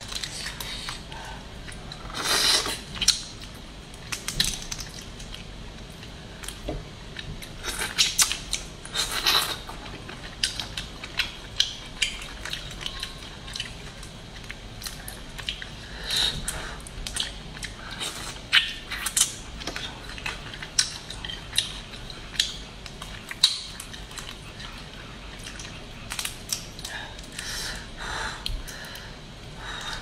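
Boiled crawfish shells cracking and snapping as they are twisted apart and peeled by hand: a run of short, sharp cracks and crunches, with louder clusters about two and a half seconds and eight to nine seconds in.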